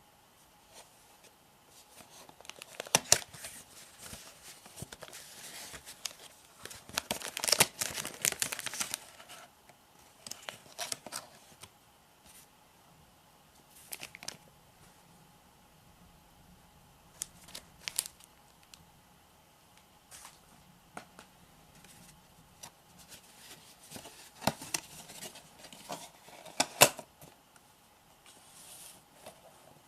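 Gift packaging being unwrapped and handled: bouts of paper or wrapping tearing and crinkling, with sharp clicks and taps, coming in irregular bursts with quiet gaps between.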